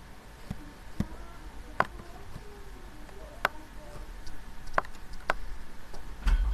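About seven sharp, separate clicks and taps at irregular intervals, over a faint low background.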